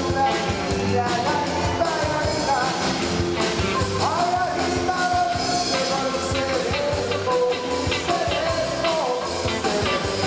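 Band music with a lead singer: a rock-style song with a sustained, wavering vocal melody over a steady drum beat.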